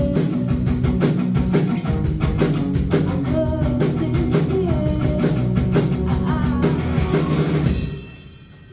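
Live rock band playing with a fast, even drum beat, guitar and singing; the song stops near the end.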